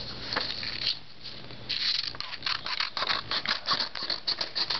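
Scissors cutting through letter-size printer paper, trimming the excess strip off the folded sheet to leave a square. It starts softly, then from about two seconds in comes a quick run of crisp snips.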